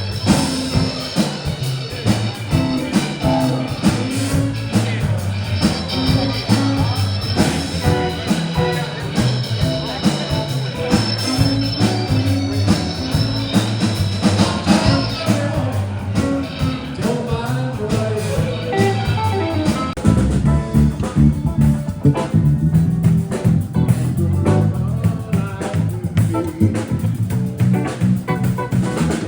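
Live band playing a blues instrumental passage led by guitar, with no vocals. About two-thirds of the way through, the higher parts drop away and the low end carries on.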